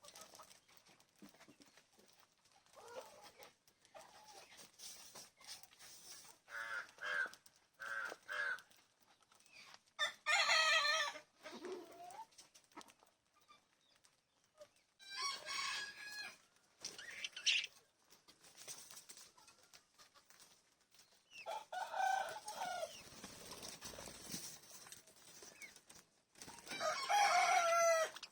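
Birds calling: about four loud, drawn-out calls, each lasting a second or so, with softer short chirps in between.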